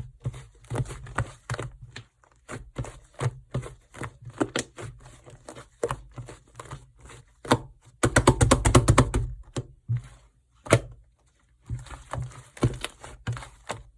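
Fluffy slime being squished and stretched by hand, making sticky clicks and pops of trapped air. About eight seconds in comes a louder, quick run of crackling pops lasting under two seconds.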